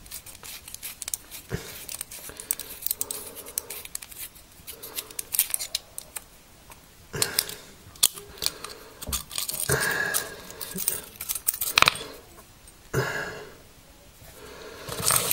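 A series of small metallic clicks and scrapes as a diamond knife sharpener is handled and its metal rod pulled out.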